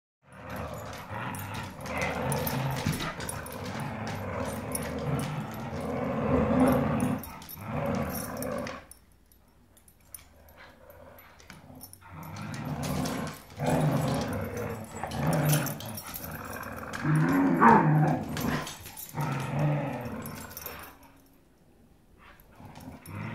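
Dogs (a boxer, a pit bull and a terrier mix) growling while they play tug-of-war over a rope toy. The growling comes in long runs and breaks off twice for a few seconds.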